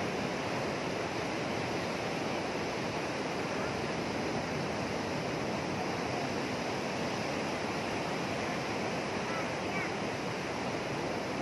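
Rough sea surf breaking on a sandy beach: a steady, unbroken rushing wash of waves whipped up by a passing storm.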